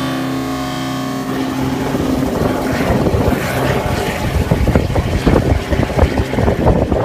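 Small helicopter departing: a steady rotor and engine hum for about a second, then the sound breaks up into rough, gusty noise as the helicopter banks away and wind buffets the microphone.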